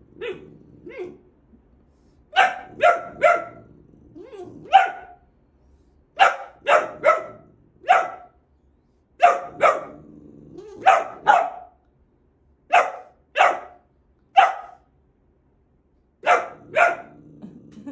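Boxer puppy barking at its own reflection in a mirror. Short, sharp barks come in bursts of one to four, with pauses of a second or two between them.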